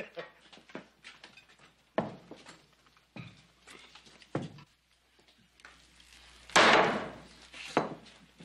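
Dining-table clatter of dishes and wooden furniture: a few separate knocks and thuds, the loudest a longer clattering knock about two-thirds of the way through.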